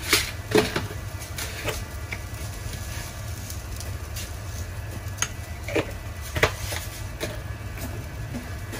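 Cooking at a simmering pot of soup on the stove: scattered sharp clicks and taps over a steady low hum, while seasoning is poured into the pot.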